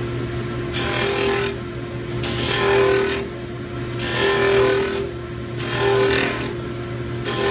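Belt and disc sander and dust collector running with a steady hum. The edge of a piece of wood is pressed against the spinning sanding disc about five times, each pass a rasping grind lasting about a second.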